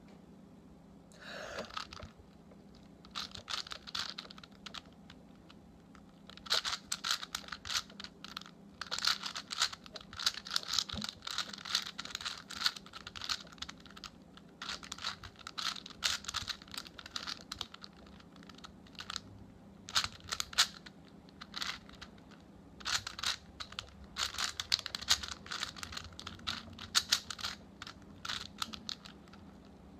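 A 4x4 Rubik's cube being turned fast: rapid clicking clatter of its plastic layers, in bursts with short pauses between.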